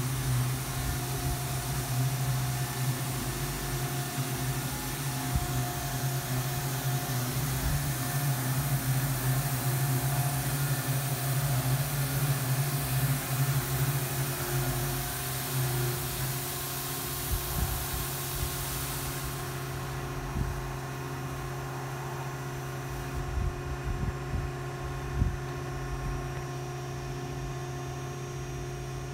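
Futura Millennium touchless in-bay car wash running over a car: a steady pump and motor hum under the hiss of high-pressure spray. The spray hiss cuts off about twenty seconds in while the machinery keeps humming, with a few small knocks near the end.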